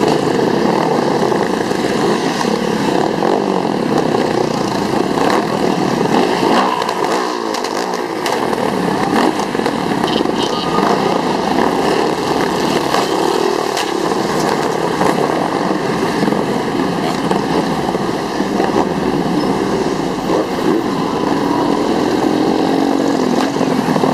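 A long column of motorcycles riding past one after another: a steady din of many engines, revs rising and falling, with tyres hissing on the wet road.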